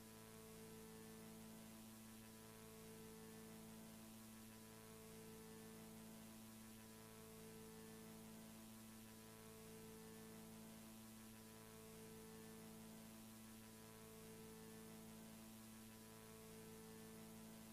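Near silence: a faint, steady electrical hum with hiss, one of its tones pulsing about every two seconds.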